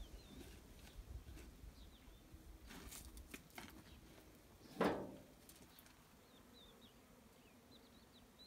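Blocks being handled in a metal wheelbarrow: a few light knocks, then one louder thud about five seconds in. Faint, short high chirps of small birds come and go in the background.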